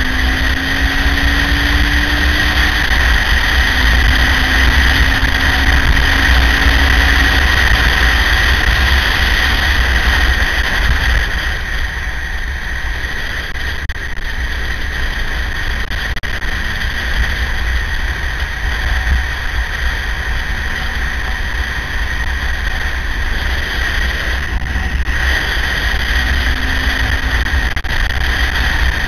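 KTM 950 motorcycle's LC8 V-twin engine under way at road speed, with heavy wind rush and buffeting on the microphone. The engine note climbs twice in the first several seconds as it accelerates through the gears, eases into a quieter stretch in the middle, and climbs again near the end.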